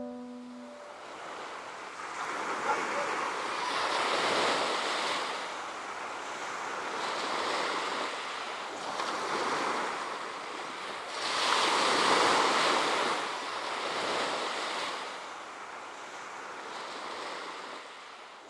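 Sea waves washing ashore, the rush swelling and fading every few seconds.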